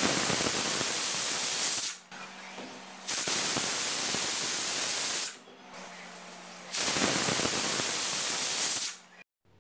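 Stovetop pressure cooker whistling three times, its weight valve letting off steam in a loud hiss of about two seconds each time. Three whistles is the sign that the moringa leaves inside are fully cooked.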